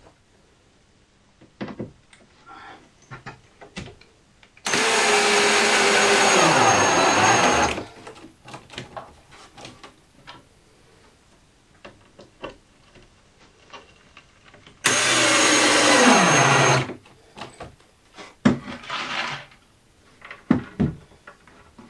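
Power drill driving screws into timber: two runs of about three and two seconds, the motor's pitch dropping as each screw bites and pulls down. Small knocks and clicks between the runs.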